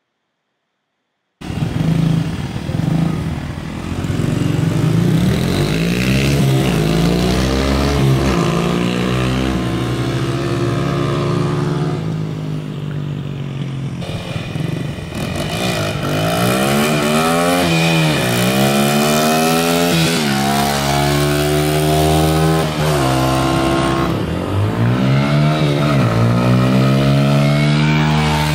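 Small dirt bike engine running and revving, its pitch climbing and dropping over and over as it accelerates and shifts. It starts abruptly about a second and a half in, and the bike passes close near the end.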